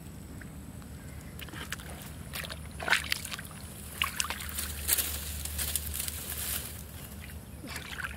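Sloshing and splashing of shallow muddy water as bare feet wade and hands grope through it. The splashes come irregularly: a sharp one a little before three seconds in, and a busier stretch of splashing from about four to six and a half seconds.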